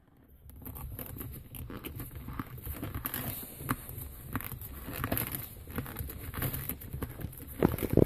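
Rustling and scattered small clicks and knocks of hands working the stock shift knob and handle of a 2005 Mustang GT, unscrewing them from the shifter.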